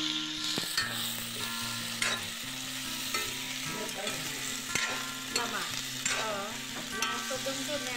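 Smoked beef and onions sizzling in a metal wok while a metal spoon stirs and scrapes through them, with several sharp clinks of the spoon against the pan.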